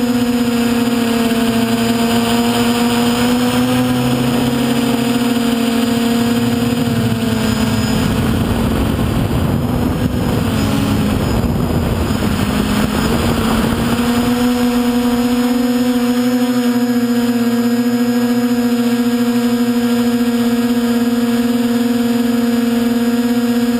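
Motor and propeller of an RC model aircraft running steadily, heard from its onboard camera, a constant humming drone. In the middle, a rushing noise builds for several seconds and the pitch wavers and dips, then the steady drone returns.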